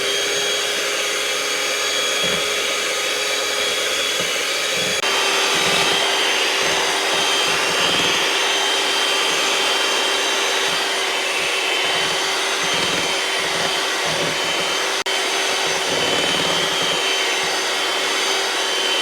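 Electric mixer running at high speed, whipping heavy cream in a bowl: a steady motor whine whose note drops slightly about five seconds in.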